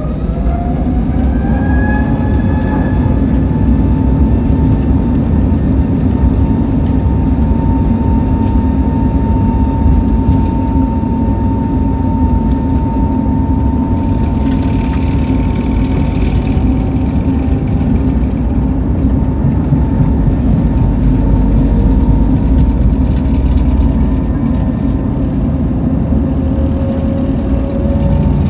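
Airbus A320neo's turbofan engines spooling up for departure: a rising whine that levels off into a steady tone over a heavy low rumble. A brief hiss comes about halfway through.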